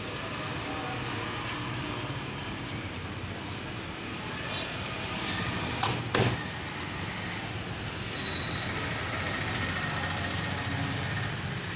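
Steady street and traffic noise, with two sharp knocks on the wooden cutting board about halfway through as the tilapia is turned over.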